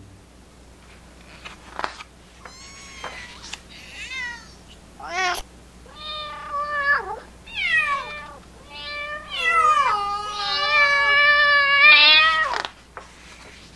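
A string of cat meows, about eight, one after another, gliding up and down in pitch and growing louder. The last is one long wavering meow that stops shortly before the end.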